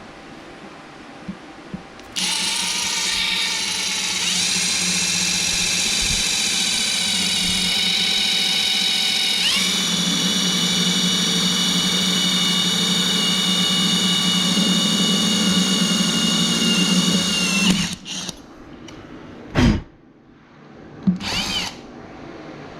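Electric drill boring a 13/64-inch hole through a racing wheel's rim for a rim screw: a steady whine for about fifteen seconds that steps up in pitch twice, then stops. Two short loud bursts follow near the end.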